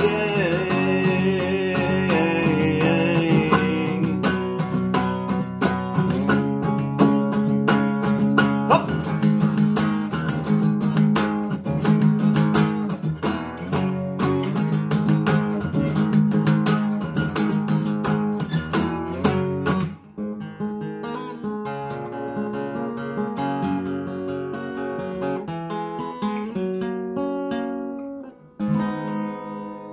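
Solo acoustic guitar strummed as a song's closing outro, with a held sung note fading out over the first few seconds. About two-thirds of the way through, the playing turns quieter, with separate picked notes, and a final strum rings out near the end.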